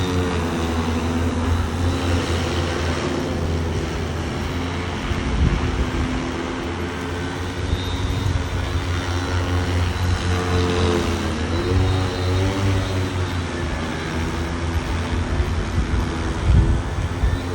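Super X 2.0 agricultural spraying drone's rotors humming in flight during a post-repair test flight, the pitch rising and falling as the motors change speed, with a dip and recovery a little past halfway.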